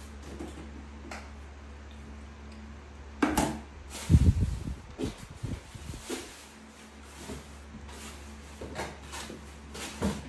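A monkey eating a piece of fruit on a tiled table: scattered small knocks and clicks. The loudest is a sharp click about three seconds in, followed by a dull thump. A steady low hum runs under it all.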